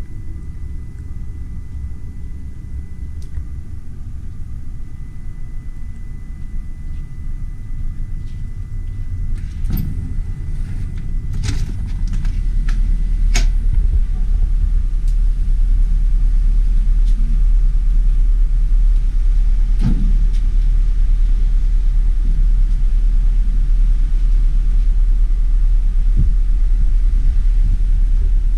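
A steady low noise with a faint thin whine, then a few clicks and knocks as the balcony door is opened. From about halfway through, wind buffets the microphone on the open balcony with a loud, steady low rumble.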